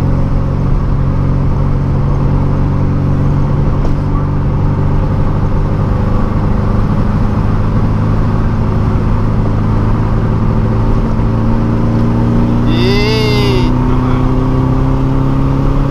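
The air-cooled 1700 flat-four of a turbocharged 1979 VW Fusca (Beetle) running steadily at highway cruise, heard from inside the cabin. Its pitch rises slowly as the car gains speed. About three-quarters of the way through there is one brief tone that rises and then falls.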